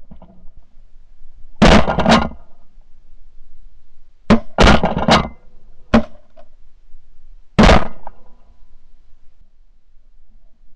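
Duck hunters' shotguns firing at passing ducks: seven sharp blasts over about six seconds. First comes a quick pair, then a rapid run of three, then two more spaced out.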